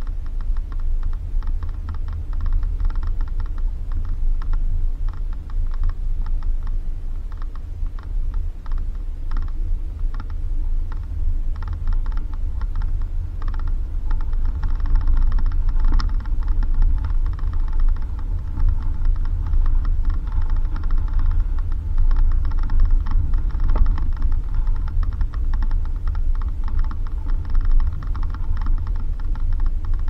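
Suzuki Jimny driving over a rough dirt road: a steady low rumble under rapid, irregular clicking rattles and creaks from the vehicle jolting over the bumps, busier from about halfway through.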